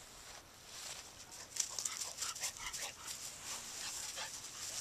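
A puppy whimpering in a run of short, high whines between about one and a half and three and a half seconds in, with the crackle of feet moving through dry grass.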